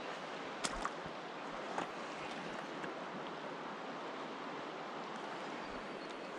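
River water rushing steadily, with a few light clicks in the first two seconds.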